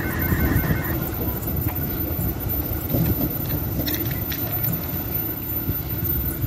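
Electric commuter train running away along the track, a steady low rumble of its wheels on the rails.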